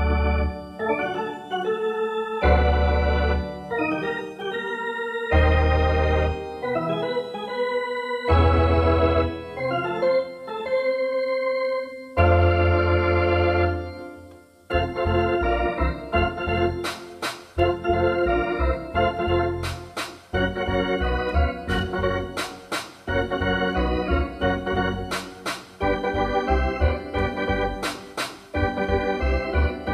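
Background music: sustained organ-like keyboard chords, joined about halfway through by sharp percussive hits in a steady beat.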